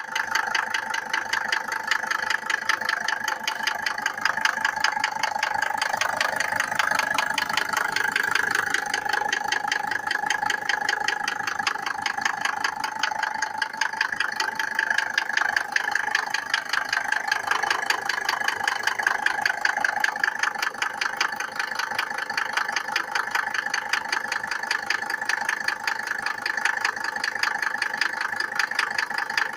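Mercedes-Benz W124's OM602 2.5-litre five-cylinder diesel idling cold with a fast, steady knock, the knocking-when-cold the owner is showing.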